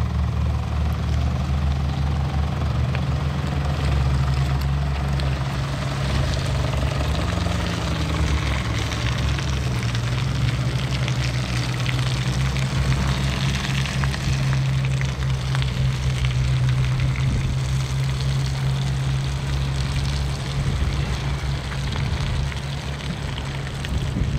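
Toyota Land Cruiser Prado SUV's engine running at low revs as it crawls over a muddy off-road track, its pitch rising and falling briefly about seven seconds in, with steady noise of tyres working through mud and ruts over it.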